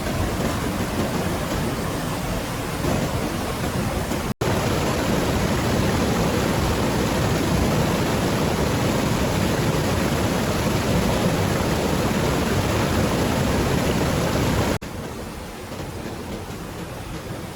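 Rushing river water, a steady hiss without pitch, in edited segments: a brief dropout about four seconds in, after which it is louder, then it cuts to a quieter stretch near the end.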